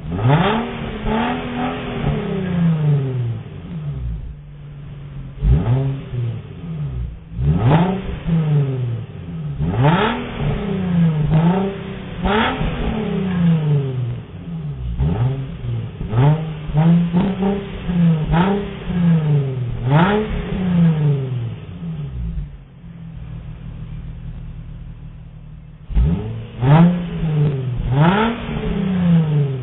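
2003 Nissan Skyline 350GT (Infiniti G35) sedan's 3.5-litre V6 through its stock exhaust, recorded at the dual tailpipe tips, revved from idle in short blips one after another, each rising and falling in pitch. It settles to a steady idle for a few seconds near the end, then the revving starts again.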